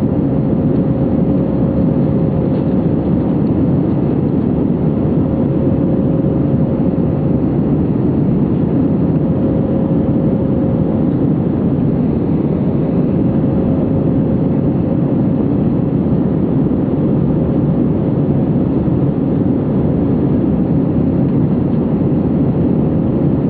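Steady cabin noise inside an Airbus A319 airliner in flight: jet engine and rushing airflow noise, with a faint steady tone.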